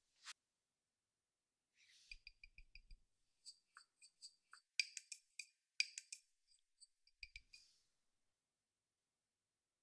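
Light metallic clinks and ticks of a small measuring spoon against the rim of a stainless steel bowl or spice jar as ground spices are measured and tipped in. There is a quick run of ticks with a few soft knocks about two seconds in, then scattered sharper clinks until near the end.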